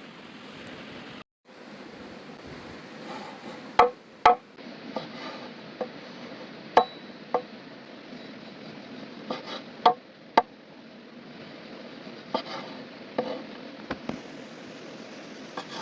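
A knife chopping on a wooden cutting board: about a dozen sharp, irregular taps, some in quick pairs, over a steady rush of flowing water.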